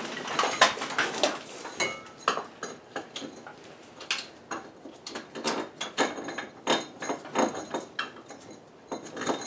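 Irregular clicks, clinks and knocks of metal hardware and a plastic-shell wheel weight being handled and fitted against a lawn tractor's rear wheel rim.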